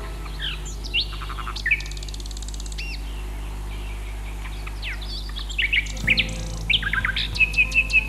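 Mixed birdsong: several birds chirping and whistling in short notes that slide up and down in pitch. Near the end comes a rapid run of repeated high calls, about five a second. A steady low hum runs underneath.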